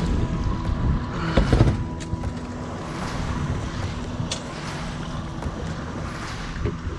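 Wind buffeting the microphone over water slapping against a fishing boat's hull, with a thump about a second and a half in.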